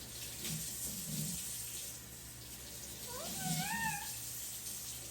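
Indian ringneck parrot giving one wavering call about three seconds in, rising and then falling in pitch and lasting about a second, with soft low murmuring sounds before it.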